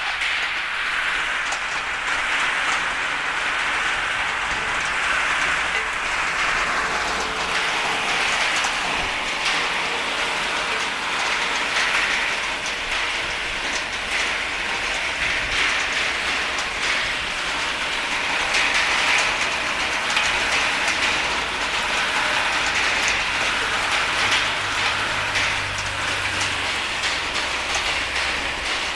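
Walnuts tumbling and rattling in the rotating perforated steel drum of a walnut sizing machine and dropping through its holes onto perforated metal trays: a steady, dense clatter of many small hard knocks.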